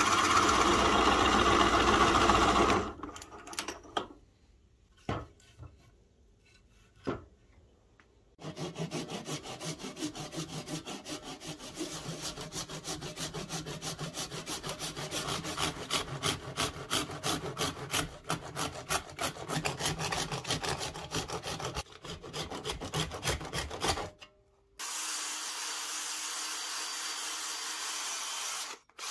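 A drill press bores into wood with a large Forstner bit and stops about three seconds in, followed by a few light knocks. A handsaw then saws through a coconut shell in steady back-and-forth strokes for about fifteen seconds. Near the end a cordless drill runs steadily with a sanding attachment inside a half coconut shell.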